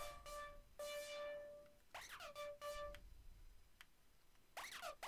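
Sylenth1 software synthesizer playing a detuned saw-wave 'falling' patch with chorus. Each short note dives quickly in pitch and then holds a steady tone; one note about a second in carries a falling noise sweep. The notes pause for a moment after about three seconds and come quickly again near the end.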